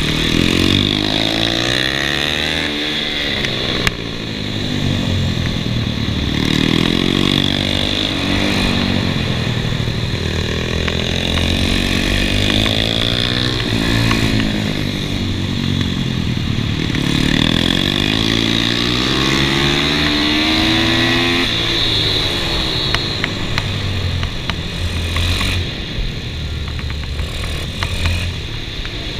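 Kawasaki KLX110 mini bike's single-cylinder four-stroke engine, fitted with a 143 cc big-bore kit, ridden hard on track: the revs climb and drop off again and again as it accelerates out of corners and backs off into them.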